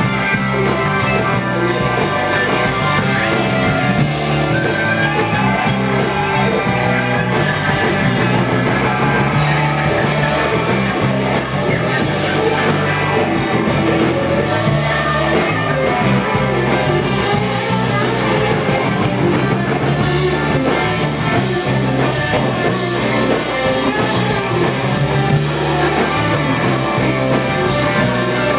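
Live rock band playing loud, amplified, with electric guitars and a drum kit driving a steady beat.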